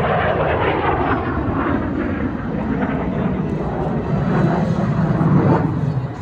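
MiG-17 jet fighter making a low pass: a loud jet roar whose pitch sweeps down in the first second or two as it goes by, then a continuing rumble.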